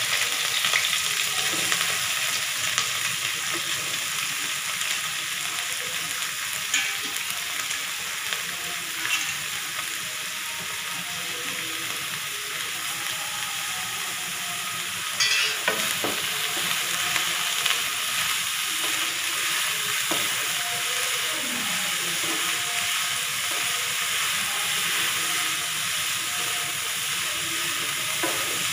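Shredded cabbage, carrots, capsicum and onion frying in hot oil in a kadhai, a steady sizzle that is a little louder in the first second as they hit the oil. A few short knocks and scrapes of the spatula against the pan as the vegetables are stirred.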